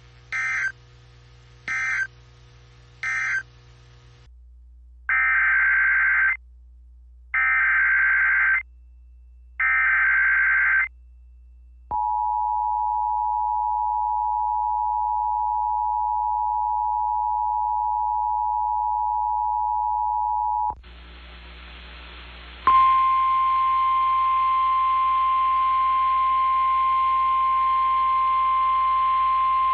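Emergency Alert System signalling. Three short data bursts close out one alert as its end-of-message code, and three longer data bursts follow as the next alert's SAME header. Then comes the steady two-tone attention signal, about nine seconds long. After a short stretch of radio hiss, the single-pitch NOAA Weather Radio warning alarm tone starts over static about 23 seconds in.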